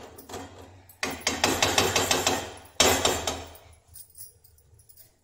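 Metal spoon knocking and scraping against an aluminium kadhai while thick pav bhaji is mixed: a quick run of knocks about a second in, then one loud knock near three seconds.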